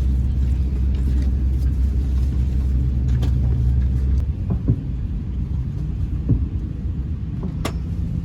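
Steady low rumble of an Airbus A350's cabin before departure, with a few faint clicks; the drone shifts to a lighter, different hum about four seconds in.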